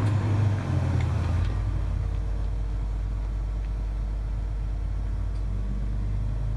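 Cat 385C excavator's C18 diesel engine running, heard from inside the cab as a steady low drone that deepens about a second and a half in.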